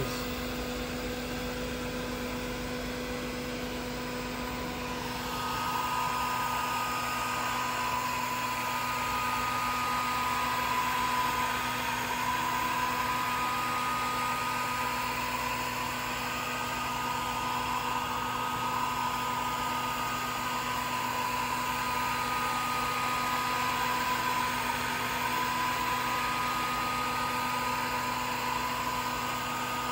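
Swiitol 18-watt diode laser engraver running a job: a steady machine hum with the air-assist pump running, and from about five seconds in a stepper-motor whine that wavers up and down in pitch as the laser head moves.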